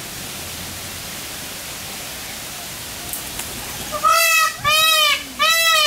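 A steady hiss, then about four seconds in three loud, evenly spaced calls of an Indian peafowl, each about half a second long and rising then falling in pitch.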